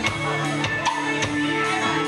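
A live rock band playing an instrumental passage: electric guitars, bass guitar and drum kit, with sharp drum hits several times a second over held bass and guitar notes.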